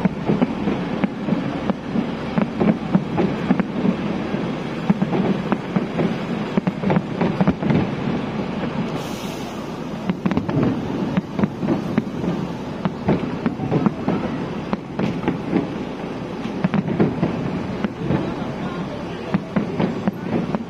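A fireworks display: a dense, unbroken run of bangs and crackling pops, with a brief high hiss about nine seconds in.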